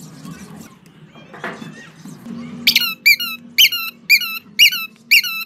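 Bicycle bulb horn, a rubber squeeze bulb on a plastic trumpet, honked repeatedly: six short squeaky honks, about two a second, starting about halfway through.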